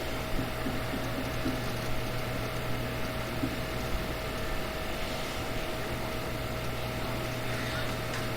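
Steady background hum and hiss with a faint constant tone, like room tone from an appliance or fan; no burp is heard.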